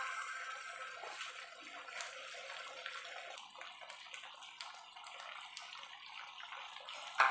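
Pork adobo in soy-vinegar sauce simmering in a frying pan: a steady hiss with small scattered pops and crackles.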